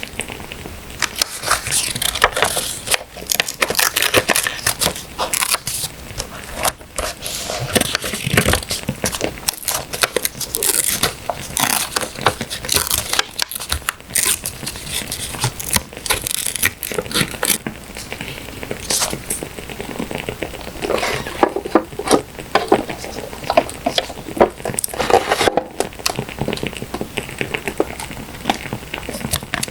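Paper and paper stickers being handled: close-up rustling, tearing and crinkling, made of many short, irregular crackly strokes.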